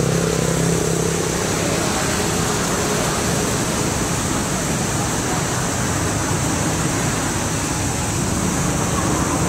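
Steady rushing noise with a low hum beneath it, unchanging throughout.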